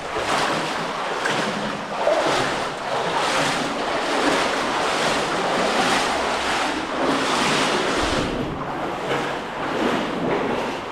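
Water sloshing and splashing as a person wades through deep water in a cave stream, surging again and again with each stride.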